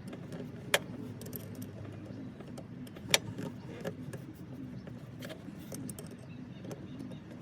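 Metal clinks and clicks of hand tools working the hose clamps on a catch can's lines, with two sharp clicks, about a second in and about three seconds in, over a steady low hum.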